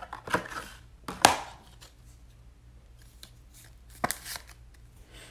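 Trading cards being handled on a table: a few sharp taps and rustles of cards and card holders, the loudest about a second in and another about four seconds in.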